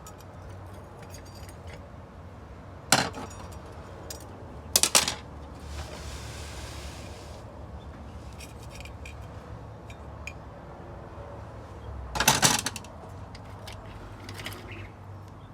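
Metal transmission clutch parts clinking and clanking as they are handled on a bench: a sharp clank about three seconds in, two more close together around five seconds, and a cluster near twelve seconds, with lighter ticks in between. A brief soft hiss comes around six seconds in, over a steady low hum.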